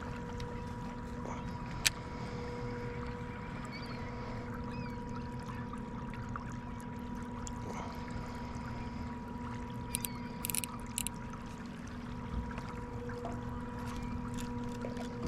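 Kayak on the water: a steady pitched hum over light water noise, with a few sharp clicks. Near the end the hum slides down in pitch and stops.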